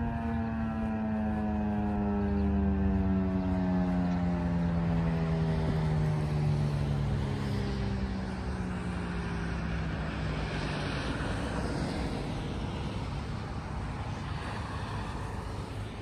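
Federal Signal 2001-SRNB outdoor warning siren winding down at the end of its steady alert tone, its single tone sliding lower in pitch and fading out over about ten seconds. Road noise from a passing car grows as the siren dies away.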